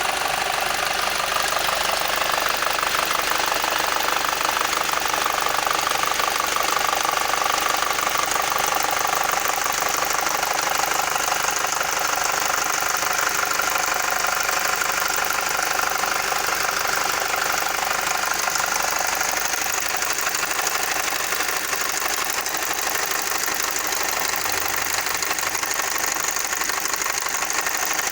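Volkswagen BVY 2.0 FSI four-cylinder petrol engine running steadily with an extraneous noise: a fast, even ticking clatter over the engine sound.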